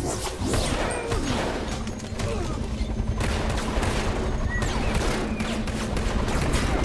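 Movie fight-scene sound effects: rapid gunfire and hits, with swishing whooshes among them.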